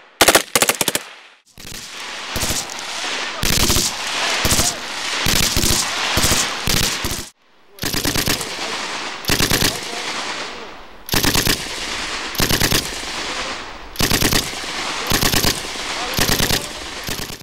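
Gunfire on a firing range. A few rapid rifle shots come first. Then a belt-fed machine gun fires short bursts of several rounds each, about one burst a second, with the reports echoing between bursts.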